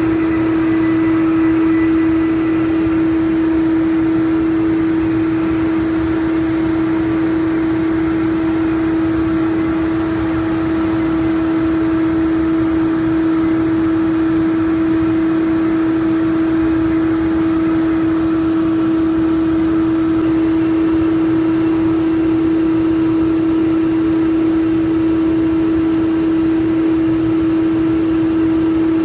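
Steady machine hum from a powered-up Takano B201 slitter rewinder standing idle. It holds one constant mid-pitched tone with fainter overtones, unchanging throughout.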